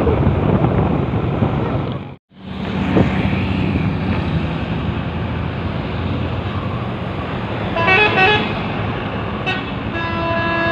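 Truck engine and road noise, broken by a brief dropout about two seconds in. Near the end a multi-tone telolet horn starts playing stepped notes, after a short horn burst a couple of seconds earlier.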